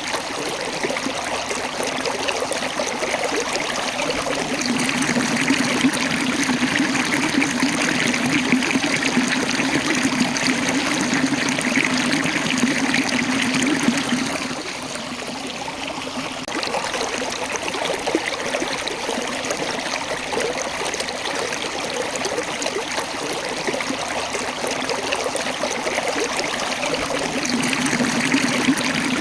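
Small waterfall and stream water rushing and splashing over rocks, a steady continuous flow that dips briefly about halfway through.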